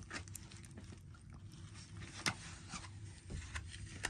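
Mini goldendoodle puppies licking and nibbling at an offered hand: soft scattered clicks, scrapes and rustles, with one sharper click about two seconds in.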